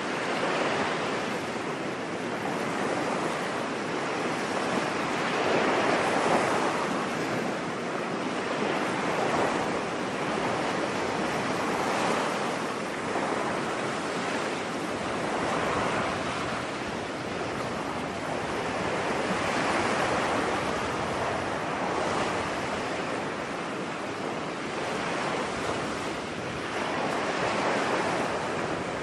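Ocean waves breaking on a beach: a continuous wash of surf that swells and falls back every few seconds.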